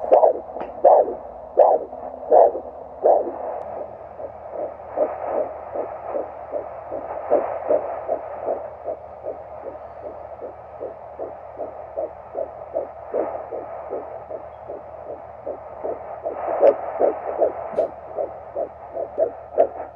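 Home fetal doppler (Hi Bebe) picking up a heartbeat through the belly of an expectant mother about 11 weeks pregnant, heard as rhythmic whooshing pulses over a steady hum. The first few beats are slower, about one and a half a second. Then a fast, steady fetal heartbeat of about two and a half to three beats a second locks in and holds.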